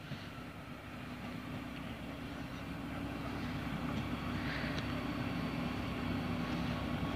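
Stadler GTW diesel multiple unit approaching, its diesel engine running with a steady low hum that grows steadily louder as it nears.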